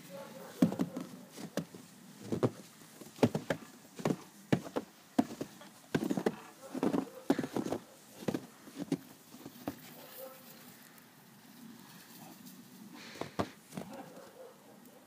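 Footsteps crunching in snow, about two steps a second, that stop after about nine seconds, with a few more steps near the end.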